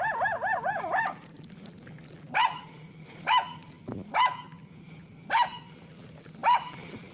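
A dog barking: a quick run of about six short, high yips at the start, then five single barks spaced about a second apart.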